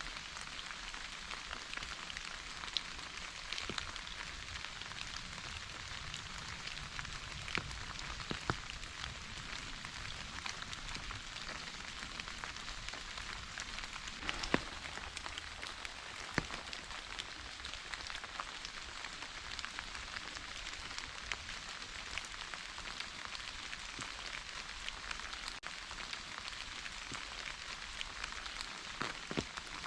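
Steady rain falling, an even hiss with many individual drops ticking on a surface and a few louder drips among them.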